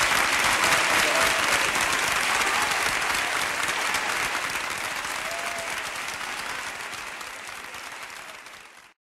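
Crowd applauding steadily, fading out slowly and stopping just before the end.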